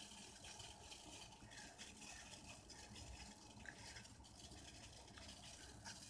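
Water with dried lavender boiling in a stainless steel pot: faint, steady bubbling with small irregular pops.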